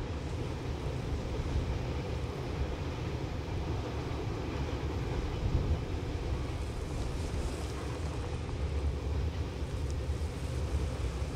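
Two double-headed QJ-class 2-10-2 steam locomotives working hard upgrade, heard from far off as a steady low rumble of their exhaust.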